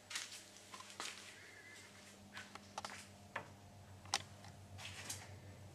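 Faint, scattered light clicks and taps, about seven of them, over a steady low hum in a small room.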